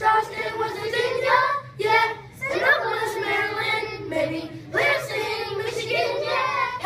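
A class of children singing a rap together in unison.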